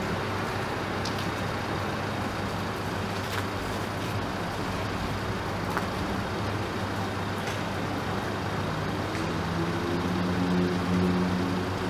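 Steady low engine hum, like a road vehicle running, over urban background noise; it swells for a few seconds near the end.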